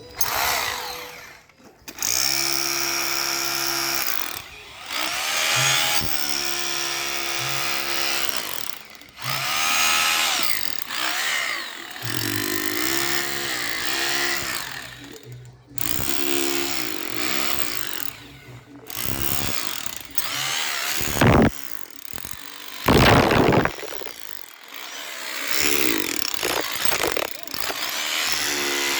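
Electric drill boring into a concrete sidewalk, its motor run in repeated bursts that rise and fall in pitch as it speeds up, bogs under load and stops. Two louder harsh bursts come about two-thirds of the way through.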